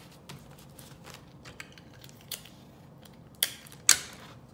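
Sticky tape being pulled off and torn while paper is handled, with small taps and rustles. Two short, loud rips come about half a second apart near the end.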